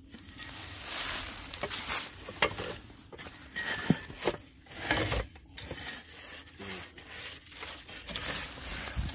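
Chain clinking and scraping against a rusty iron bore pipe as it is gripped and levered with a wooden pole to pull it out of the borehole, with irregular rustling and a few sharp metallic clicks.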